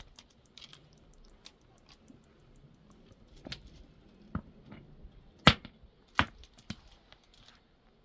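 A few scattered sharp knocks and clicks at irregular intervals. The two loudest come a little past the middle, less than a second apart.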